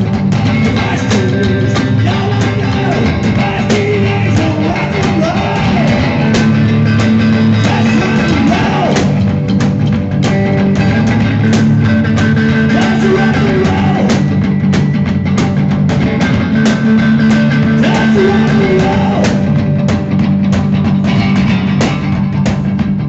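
Live rock 'n' roll band playing: upright double bass, drum kit and a hollow-body electric guitar, with a driving beat.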